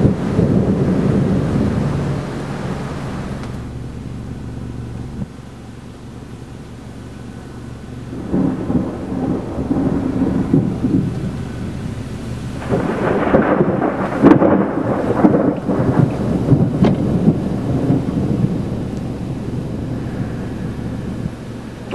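Rolling thunder from a severe thunderstorm: a long low rumble at the start that fades away, then a second, longer roll building through the middle with a few sharp cracks in it before it dies down.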